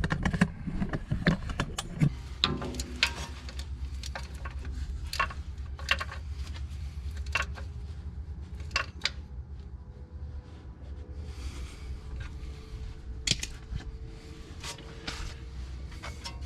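Scattered metallic clinks and taps of hand tools and brake parts as a front disc brake caliper is fitted, over a steady low hum.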